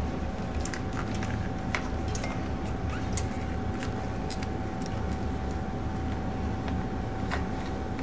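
Scattered light clicks and rattles of a motorcycle wiring harness and its plastic connectors being handled and routed, over a steady background hum with a faint steady tone.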